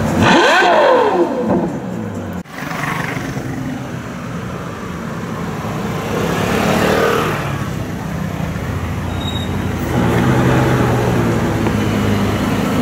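Ferrari F12berlinetta V12 (Novitec N-Largo) revving hard once, its pitch shooting up and dropping back within about a second. After a cut, a vehicle passes with a falling pitch, and near the end the V12 runs steadily at low revs as the car rolls close.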